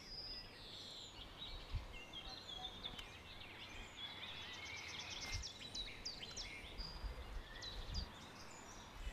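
Faint birdsong: several birds chirping and trilling in many short calls, over a low outdoor background noise.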